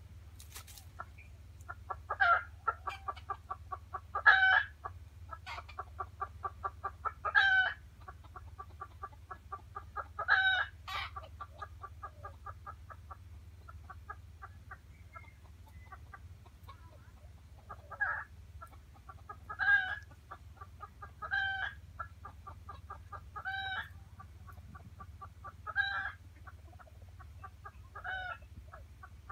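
A hen clucking in fast, even runs of short notes, broken every two to three seconds by a louder, longer squawk. The runs thin out about halfway through, while the louder calls keep coming.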